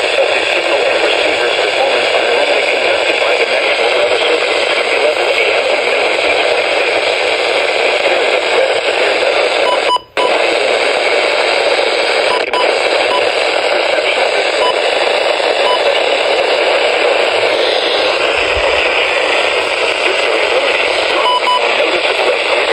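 Weather radio receiver putting out a loud, steady static hiss with no clear voice getting through, the sound of a weak or lost station signal. The hiss cuts out for a moment about ten seconds in.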